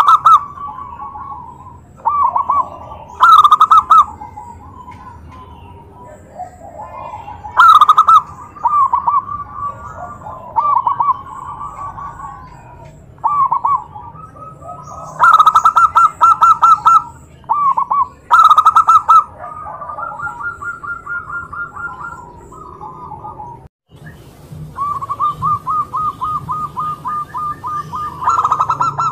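Zebra dove (perkutut) song: loud phrases of staccato coos at intervals, with fainter cooing between them. Near the end come fast, even runs of short rolling coos, the 'kerot' style of perkutut singing used as a lure to make other doves answer.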